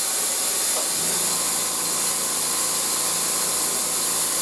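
Loud, steady hiss of compressed air rushing into a pickup truck tire being inflated to seat its beads on the rim, with a low hum joining about a second in.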